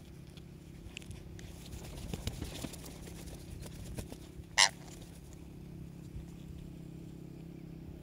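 Young green parakeet giving one short, loud squawk about halfway through, among scattered rustles and wing flaps from the parakeets perched on an arm. A low steady hum runs underneath.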